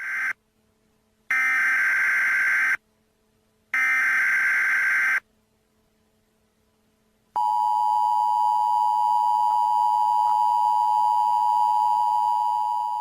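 Emergency Alert System broadcast tones for a severe storm warning: three short screeching bursts of digital data header about a second apart, then, about seven seconds in, the steady two-tone attention signal.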